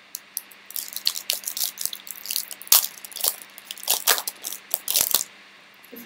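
Foil trading-card pack wrapper crinkling and crackling as it is torn open by hand, stopping about five seconds in.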